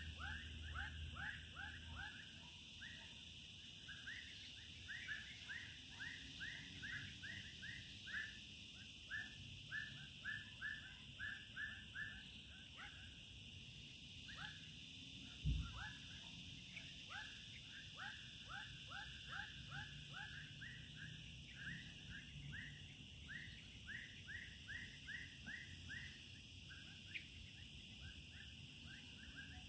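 Outdoor dusk chorus: a steady high insect drone under long runs of short, falling animal chirps, several a second, that break off now and then and resume. A single dull thump about halfway through.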